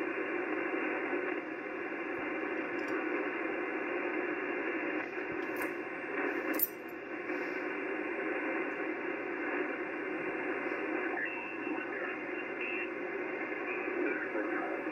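HF amateur transceiver's receiver audio on the 80-metre band while the dial is tuned: steady band noise and static from the speaker with no station coming through. There are a couple of brief clicks about halfway and short faint tones near the end.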